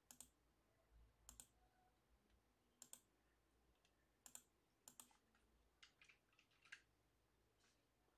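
Faint, scattered clicks of a computer mouse and keyboard being operated, a dozen or so, several in quick pairs like double-clicks.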